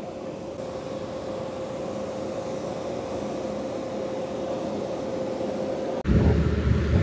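Steady mechanical hum with one held tone, over a general outdoor noise, slowly growing louder. About six seconds in it cuts suddenly to a louder, deeper rumble.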